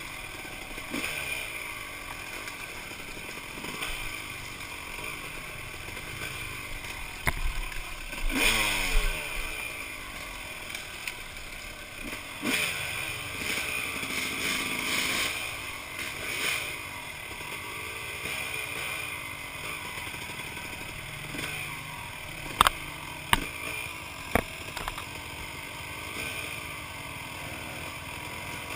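Dirt bike engine heard from the rider's helmet, its pitch rising and falling again and again as the throttle is worked over rough trail, with louder bursts about a third of the way in and around the middle. A few sharp knocks cut through, several in quick succession past the two-thirds mark.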